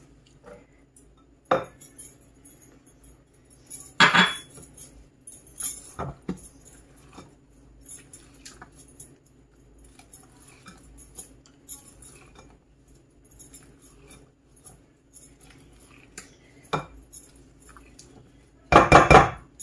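Spatula mixing cake batter in a glass bowl, with scattered clinks and knocks against the glass, a few louder taps, and a louder clatter near the end.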